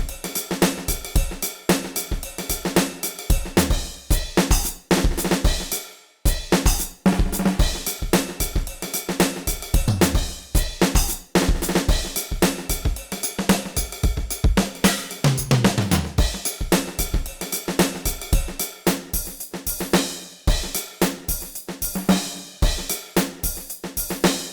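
Ketron SD90 drum samples played as a SoundFont, running a steady rhythm-and-blues groove of kick, snare, hi-hat and cymbals. The pattern stops briefly about six seconds in, then picks up again.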